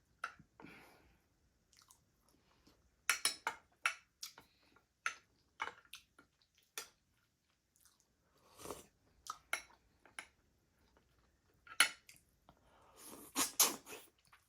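A person chewing juicy smoked meat close to the microphone, with wet lip smacks and clicks in irregular clusters.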